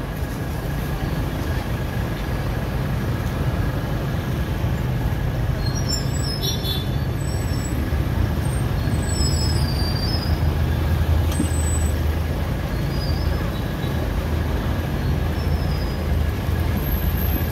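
Street traffic: a steady low rumble of motorbike and tuk-tuk engines.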